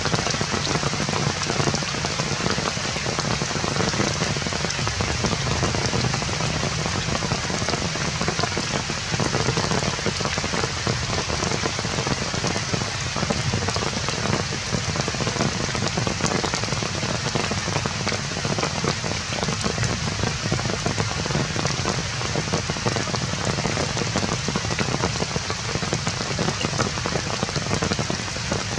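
Steady heavy rain falling and pattering on surfaces, a dense, unbroken hiss.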